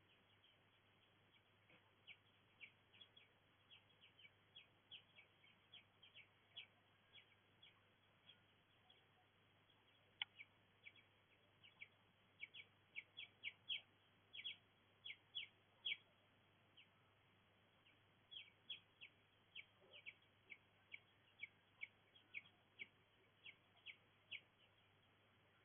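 A bird chirping: many short, high chirps in irregular runs over a faint background hiss, loudest around the middle.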